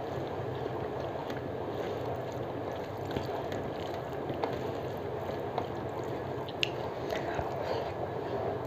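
Fingers mixing wet rice with dal and mashed potato on a steel plate, soft squishing with a few light ticks, over a steady background hiss.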